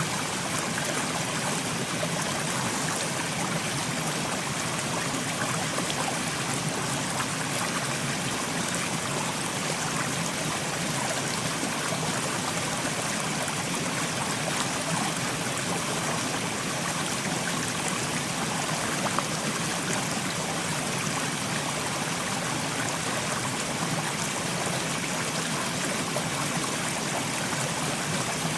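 Mountain stream flowing over rocks: a steady rush of water with a trickling, splashing texture, unchanging throughout.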